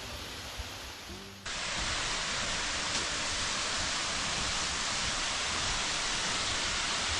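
Waterfall pouring: a steady rush of falling water that jumps abruptly louder about a second and a half in, then holds steady.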